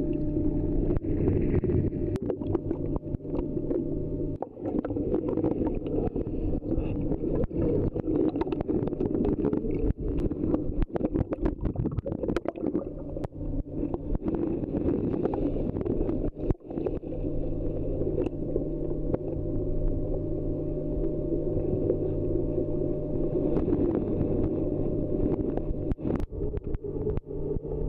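Water rushing and gurgling as heard by a submerged camera, with a steady low hum underneath and many sharp little clicks and ticks, like grit and bubbles striking the housing.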